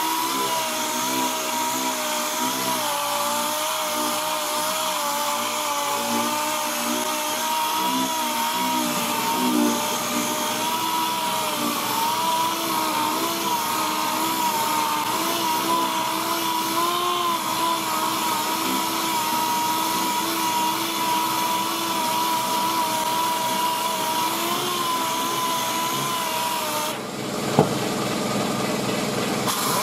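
Random-orbital (DA) palm sander running while it is worked over primer on a car body panel: a steady whine that wavers slightly in pitch, with the hiss of the sandpaper on the primer. A single sharp knock near the end.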